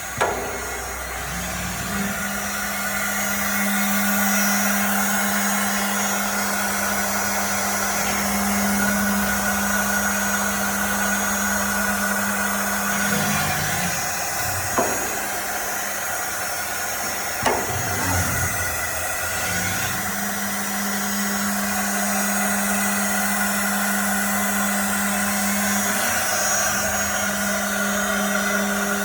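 Misura Arte 3+1 CNC copy router running with a steady motor hum over a high hiss. The hum drops away briefly twice, about 13 and 18 seconds in, with a few sharp clicks.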